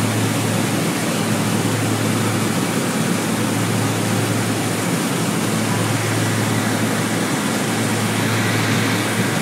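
Steady engine and propeller drone of the aircraft in flight, heard on board: a constant low hum under a rush of air noise.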